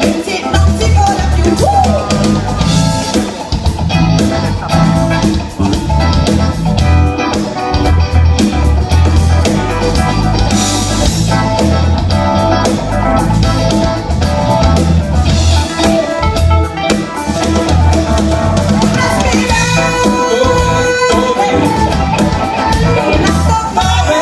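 Live band playing an upbeat song with drum kit and guitar over a steady beat.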